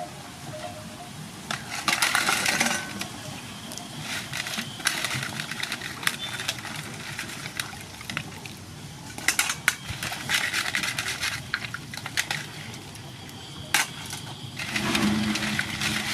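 Crabs being cleaned by hand: hard shells clicking and knocking against each other and the bowl, with several short noisy bursts of scrubbing or water.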